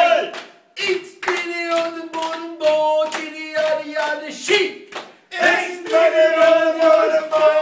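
Men's choir singing a rhythmic clapping song in unison, clapping their hands in time. The singing drops out briefly twice, about half a second in and about five seconds in.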